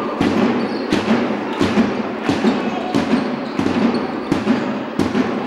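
Regular sharp thumps, a little under two a second, over the steady din of an indoor basketball crowd.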